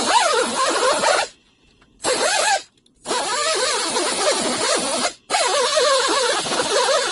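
Handheld power tool working on metal, likely an angle grinder cutting or grinding out rusted sheet metal. It runs in three bursts that stop and start abruptly, and its whine wavers as it bites.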